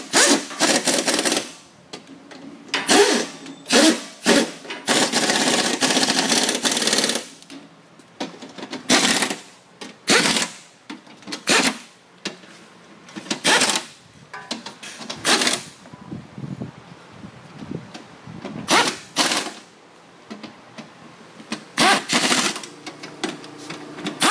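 Air impact wrench running in short bursts, about a dozen, with one longer run of about two seconds, on bolts of a walk-behind trencher.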